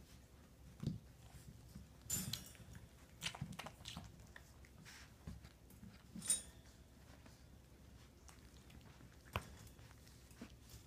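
Four-week-old puppies playing and mouthing toys on a blanket: scattered soft knocks, rustles and chewing sounds, with sharper clicks about two, six and nine seconds in, the one near six seconds the loudest.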